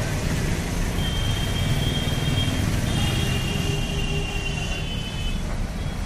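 Street traffic: motorcycle and car engines running as they pass close by, with two long high-pitched horn tones, one about a second in and one about three seconds in.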